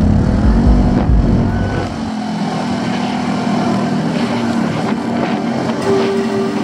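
A motor vehicle's engine running, its heavy low rumble dropping away about two seconds in and leaving a steadier hum.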